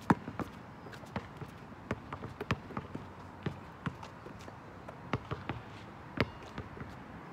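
Basketball bounces and running footsteps on an outdoor asphalt court: sharp, irregular thuds a few times a second, the loudest one just at the start.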